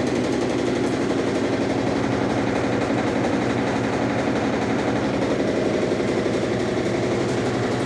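Electrolux Turbo Economia LTE12 top-load washing machine running a wash cycle: a steady motor hum with a fast, even rattle.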